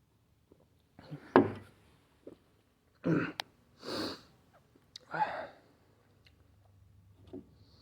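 A person's short breaths and sniffs through the nose and mouth, four of them spread over about five seconds. The first comes with a sharp click, and there is a fainter one near the end.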